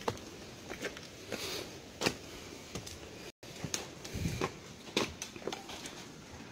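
Irregular footsteps and small knocks of people walking on stone and tile, with handling noise from a handheld phone. The sound cuts out completely for an instant a little over three seconds in.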